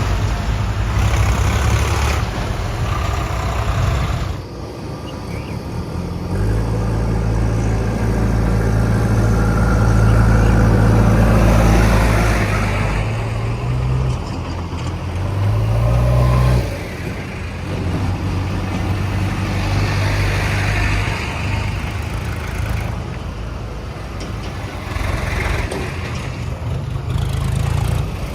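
Diesel engine of a JCB 3DX backhoe loader working under load while loading mud. The revs build from about six seconds in, change pitch a few times, then drop back suddenly about two-thirds of the way through to lower, steadier running.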